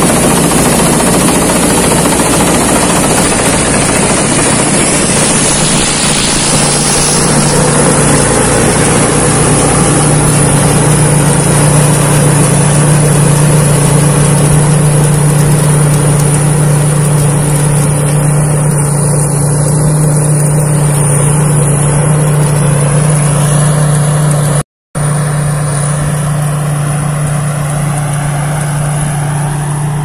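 Thai Seng Yon rice combine harvester running steadily while harvesting, a constant loud mechanical drone with a held low hum and a thin high whine. The sound cuts out for a split second near the end.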